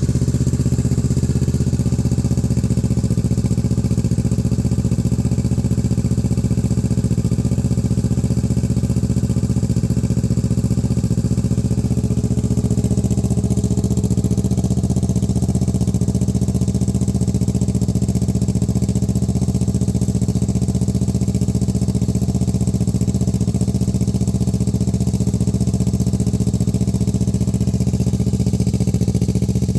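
2017 Kawasaki Z650's parallel-twin engine idling steadily through a Yoshimura R11 titanium full exhaust, warming up after a cold start.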